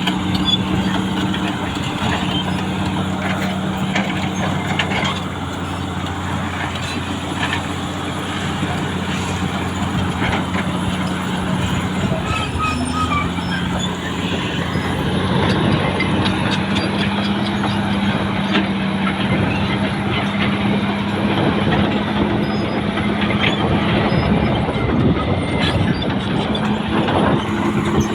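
Caterpillar D6R XL bulldozer's diesel engine running steadily at working revs, its pitch shifting slightly now and then, with scattered short clanks over it.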